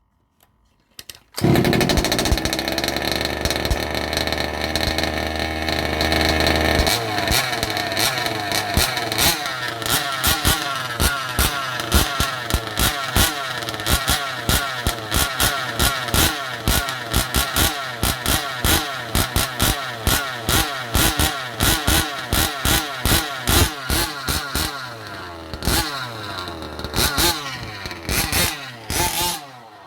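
Two-stroke petrol engine of a 1/5-scale RC car with a performance exhaust pipe catches about a second and a half in and runs steadily for several seconds. It is then revved in quick repeated blips, and stops near the end.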